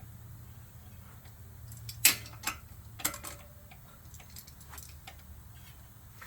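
Light metallic ticks and clinks from an e-bike's front disc brake rotor being worked on and straightened where it rubs. The loudest is a sharp clink about two seconds in, with two more soon after.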